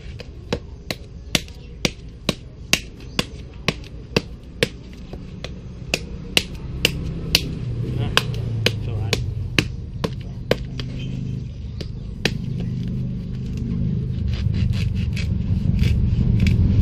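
Sharp knocks of a machete-like knife striking a husked coconut's hard shell, about two to three blows a second, stopping about three-quarters of the way through. A low engine hum builds up under them in the second half.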